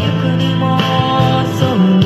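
A Japanese pop band playing live: a slow song on acoustic guitar and keyboards, with the female lead singer's voice holding notes over the band.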